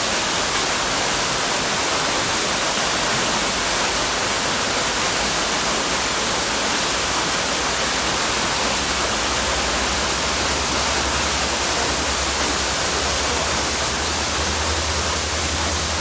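Small waterfall pouring down a rock face: a steady, unbroken rush of falling water. A low, steady rumble joins about halfway through.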